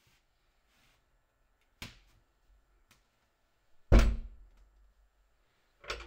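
A few scattered thuds and knocks: a light knock about two seconds in, a sharp click a second later, then a heavy thump about four seconds in, the loudest, and a softer knock near the end.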